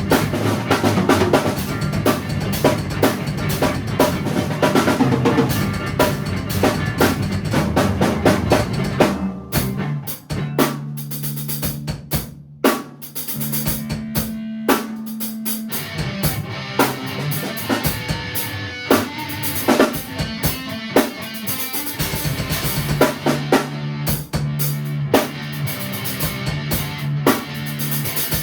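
Live band jam: a drum kit playing a busy beat of kick, snare and rimshots over held low notes from a guitar. About ten seconds in, the drums drop out for several seconds, leaving the sustained low notes, then come back in and build up again.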